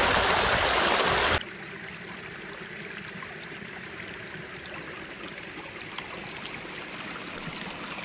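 Running water of a woodland stream: a loud, even rush that drops abruptly about a second and a half in to a softer, steady flow.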